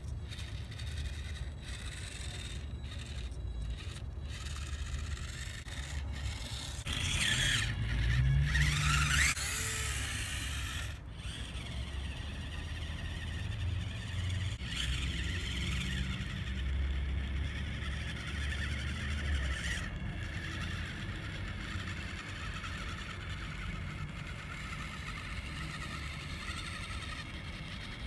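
Tiny brushed motor and gearbox of a 1/25-scale Proline Ambush micro rock crawler whining as it crawls along a wooden plank, the pitch rising and falling with the throttle, loudest about a third of the way in. A low rumble runs underneath.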